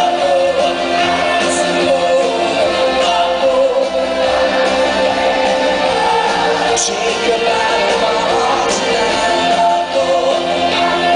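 Rock band playing live, with a sung lead vocal over electric guitars and drums, heard from the audience seats of a large hall.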